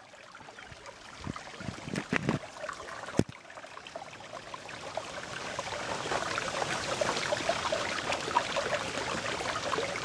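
Water trickling and splashing in a small rock-lined garden pond, a steady hiss that grows louder through the second half. A few sharp knocks in the first three seconds.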